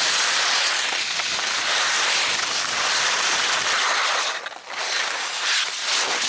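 Skis sliding and scraping over piste snow, with wind rushing over the microphone; the noise dips briefly about four and a half seconds in.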